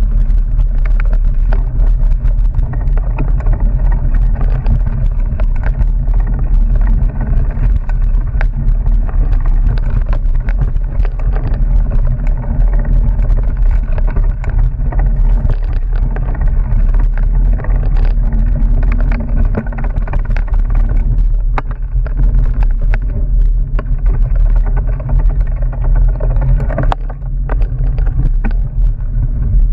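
Mountain bike riding down a rough dirt singletrack, heard through an action camera mounted on the bike or rider: a loud, steady low rumble of wind and vibration on the microphone. Many short rattles and knocks come through it as the bike bounces over roots and stones.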